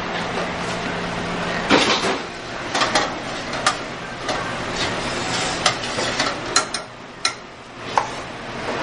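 Pans and utensils clanking and scraping on a commercial range as a chef works the line, with a sauté pan sizzling over a steady low hum. Sharp metal knocks come every second or so.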